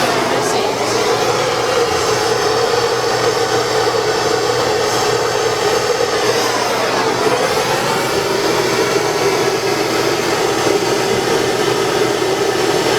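Propane torch gun burning with a steady, loud hiss as it heats a branding iron.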